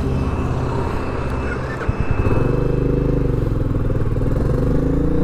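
Motorcycle engine running as the bike pulls away under a rider and passenger. The engine note shifts with a short click about two seconds in, then runs stronger and evenly pulsing.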